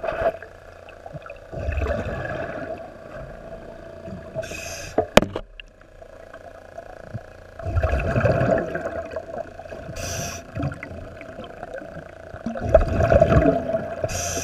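A diver's regulator breathing underwater: a short hiss of inhaled air about every five and a half seconds, each followed a couple of seconds later by a longer rumble of exhaled bubbles. A steady hum runs underneath, with one sharp click about five seconds in.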